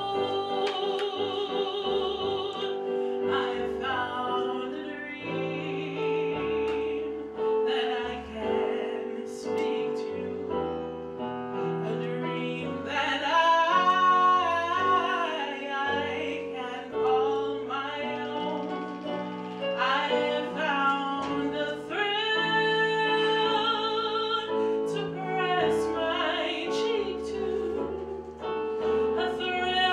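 A woman singing solo into a microphone over an instrumental accompaniment of held chords and a moving bass line. Her voice swells into long, loud held notes about halfway through.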